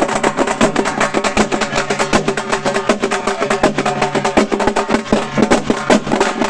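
Halgi frame drums beaten with sticks in a fast, dense rhythm, with a steady low tone held beneath the strokes.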